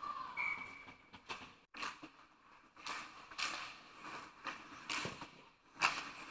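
Ice hockey skates scraping and carving on the ice, with sharp clacks of sticks and puck during a scramble in front of the net: a run of irregular short scraping strokes.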